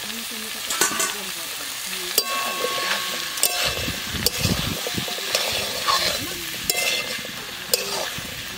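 Diced potatoes and pond oyster meat sizzling steadily in a hot metal wok, stirred with a metal spatula that scrapes and clinks against the pan about once a second, some strikes ringing briefly.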